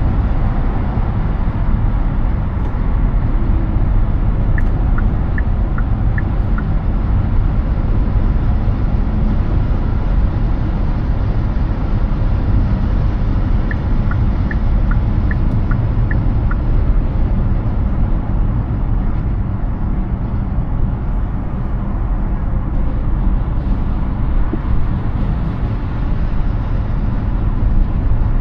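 Steady road and tyre noise of a Hyundai Ioniq 6 electric car cruising on a highway, with no engine note. Twice, about five and fifteen seconds in, a short run of light, evenly spaced ticks sounds over it.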